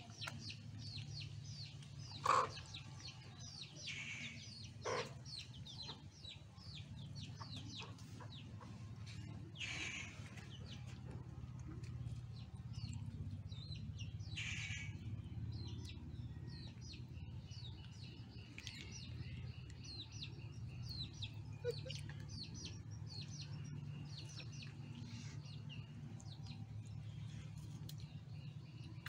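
Backyard chickens clucking and birds chirping, with many short high calls throughout and a few louder calls in the first half, over a steady low hum.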